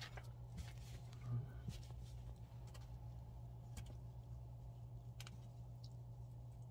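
A few faint scattered clicks and scuffles as a puppy paws at and bites a plush toy hanging on a string, over a steady low hum.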